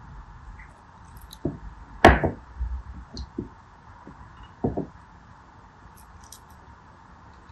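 Water beads and a craft knife handled over plastic dishes of beads: a few sharp knocks and taps, the loudest about two seconds in and another a little before five seconds, over a steady faint hiss.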